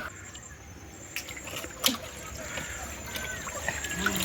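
River water trickling and splashing lightly as a fishing net is worked in the shallows, with a couple of sharp clicks.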